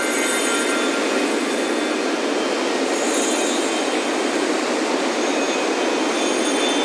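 A steady, unbroken wash of ocean surf, with wind chimes ringing faintly and high a few times: near the start, about three seconds in, and near the end.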